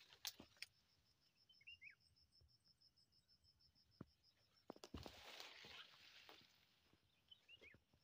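Faint rural ambience: an insect calling in a steady, fast high-pitched pulse that stops about seven seconds in, and a bird giving short falling chirps twice. A few soft clicks and a stretch of rustling about five seconds in come from footsteps through undergrowth.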